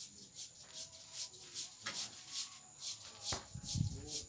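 Hands rubbing and scrubbing something in a metal basin, a rhythmic swishing about three strokes a second. A dull thump with a short low rumble just after three seconds in.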